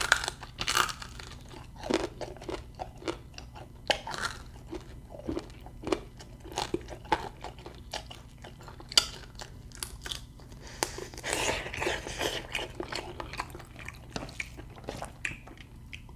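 Close-up chewing and biting of cooked quail meat, with many irregular crunches between bites.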